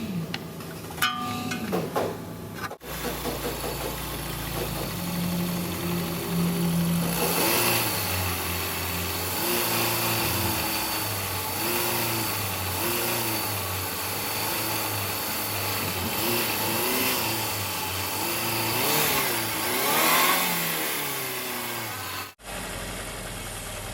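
A vehicle engine revving up and down over and over, roughly once a second, after a few clicks and knocks in the first seconds.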